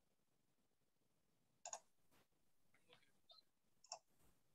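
Near silence with a few faint, short clicks: one about one and a half seconds in, then three more close together near the end.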